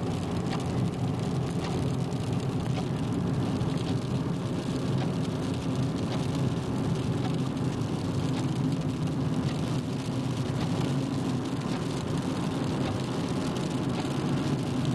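Car driving at speed, heard from inside the cabin: a steady run of engine and tyre noise on a wet, slushy road, with a few faint light ticks.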